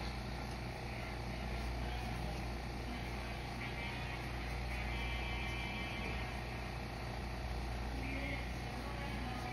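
A steady low machine hum, with faint soft rustling of woven carbon fiber cloth being smoothed down by a gloved hand now and then.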